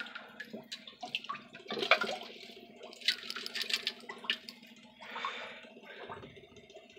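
Aquarium water sloshing and bubbling in a partly drained tank: irregular splashes and drips come and go in short bursts over a faint steady hum.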